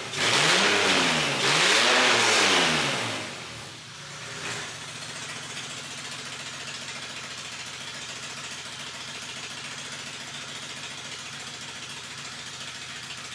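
Car engine, freshly swapped into a BMW E46, revved twice, its pitch climbing and falling each time, then settling to a steady idle about four seconds in.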